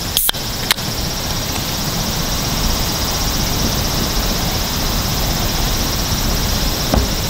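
Two sharp knocks as a Thermos can cooler holding a drink is handled and set on a wooden table, over a steady rushing noise.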